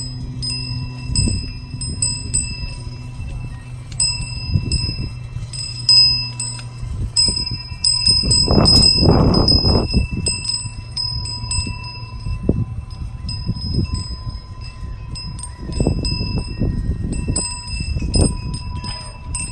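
Metal tube wind chimes clanging again and again, their struck tubes ringing on in overlapping bell-like tones. Low rumbling bursts come in partway through and again near the end.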